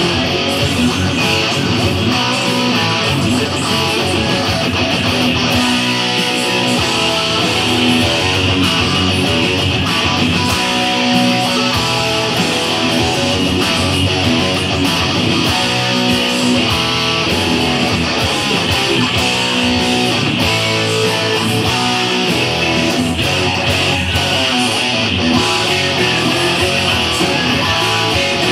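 Electric guitar played along with a hard rock band recording, with drums keeping a steady beat; loud, unbroken music.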